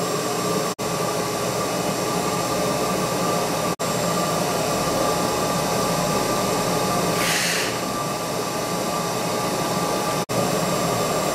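Shop vac running steadily, sucking the air out of an inflatable culvert plug through a hose fixed to its valve, to deflate it for packing. A brief hiss about seven seconds in, and the sound drops out for an instant three times.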